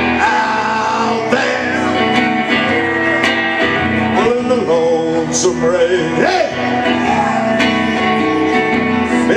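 Live punk-blues song: a solo electric guitar strummed through an amplifier, with a man singing over it.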